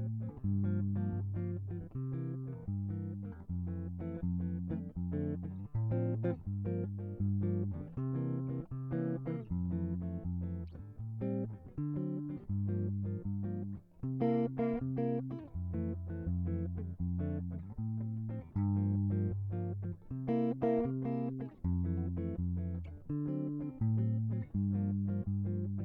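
Instrumental music of plucked guitar over a bass line, notes changing in a steady, even rhythm.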